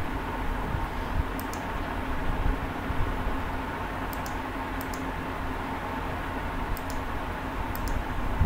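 Computer mouse button clicking about five times, each click a quick press-and-release pair, over a steady low background hum.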